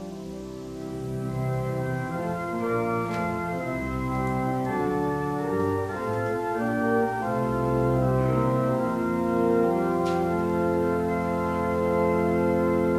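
Church organ playing held chords that change every second or two, growing louder over the first few seconds and then staying full.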